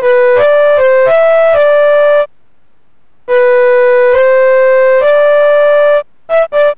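Simple electronic keyboard melody played one note at a time, the notes held steady without fading. It breaks off for about a second midway, then returns with longer notes and turns into quick short notes near the end.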